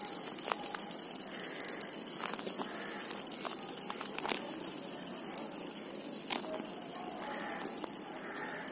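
A solar-powered toy cockroach running on its small vibration motor, its wire legs rattling over paving stones with scattered clicks.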